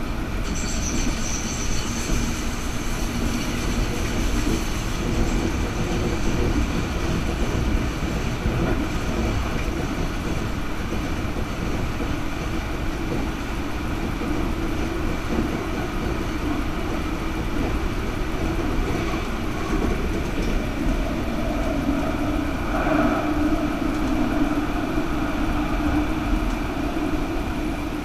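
Stadler Variobahn light-rail tram running at speed, heard from inside the car: a steady rumble of wheels and running gear under a constant electric drive whine. A high wheel squeal rises over it in the first few seconds on a curve, and the later part runs through a tunnel.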